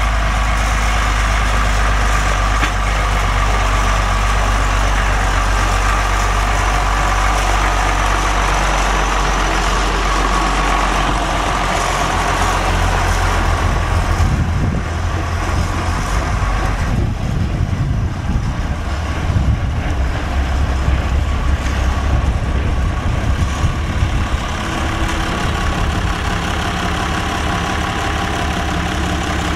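International Harvester farm tractor's engine running as the tractor drives past. Its low engine note is steady at first and turns uneven about halfway through.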